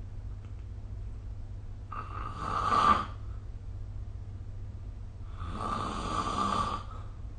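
A sleeping person snoring: two snores about three and a half seconds apart, the first swelling louder before it stops short, the second longer and more even, over a steady low hum.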